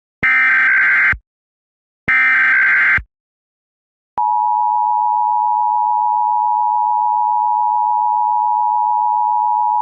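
Emergency Alert System signal: the last two of the three SAME header data bursts, each about a second long, then after a short pause, about four seconds in, the steady two-tone EAS attention signal (853 and 960 Hz) that precedes a tornado warning message.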